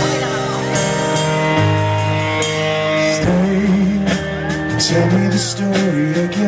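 Live rock band playing a song's intro: sustained chords over a steady bass, before the vocal comes in.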